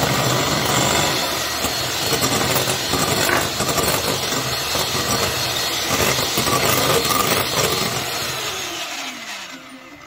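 Electric hand mixer whipping egg whites and icing sugar in a glass bowl, its beaters whirring through the stiffening meringue. The motor runs steadily, then winds down with a falling pitch near the end as it is switched off.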